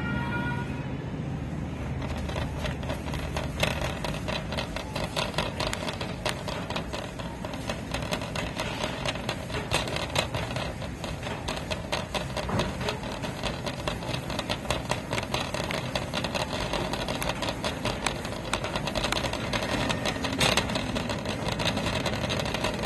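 Wire shopping cart rolling over a tiled floor, its wheels and basket rattling in a dense, irregular clatter of clicks.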